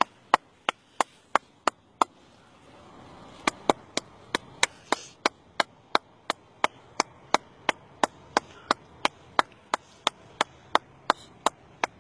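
Hands clapping in a steady rhythm, about three sharp claps a second, with a pause of about a second and a half near two seconds in; clapping at the water's edge to call fish up to be caught.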